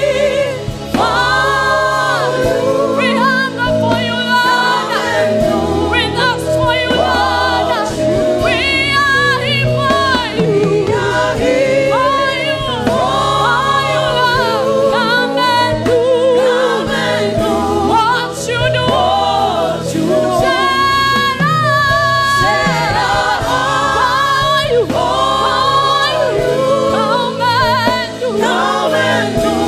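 Gospel worship music: several voices singing together in chorus, with vibrato, over a steady instrumental accompaniment.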